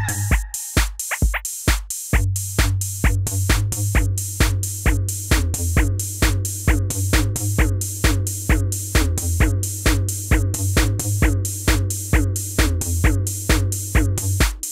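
Electronic background music with a fast, steady drum-machine beat and bass; the bass drops out for a moment about half a second in and comes back at about two seconds.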